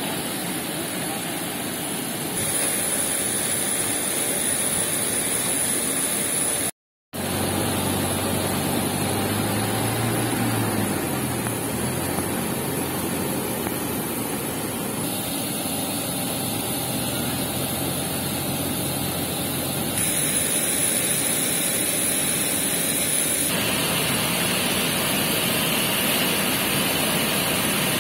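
Steady rushing noise of an airport apron beside a parked airliner, stepping up and down in level a few times. A low engine hum swells and fades around ten seconds in, and the sound cuts out completely for a moment about seven seconds in.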